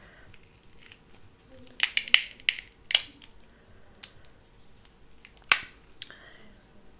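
Dungeness crab leg shell being cracked open. There is a quick cluster of sharp cracks about two seconds in, another crack at three seconds, and the loudest snap at about five and a half seconds.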